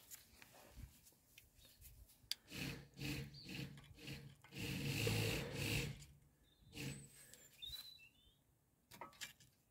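Screwdriver prising at a VW T5.1 front brake caliper: irregular metal scraping and clicking in short spells, the longest about halfway through, as the brake pad is levered against the caliper piston.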